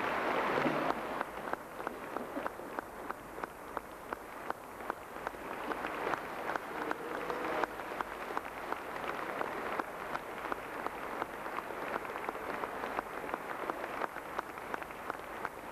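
Audience applause: a dense burst that thins after about a second into steady rhythmic clapping in unison, about three claps a second.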